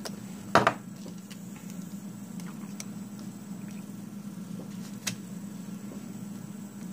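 Nail-stamping tools handled on a tabletop: a sharp knock about half a second in and a lighter click near five seconds, with a few faint ticks between, over a steady low hum.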